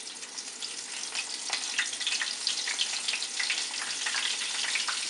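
Shrimp frying in very hot oil in a small pan: a steady sizzle with many crackling pops, growing louder as more floured shrimp go in.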